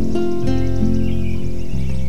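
Instrumental background music with held notes that change every half second or so.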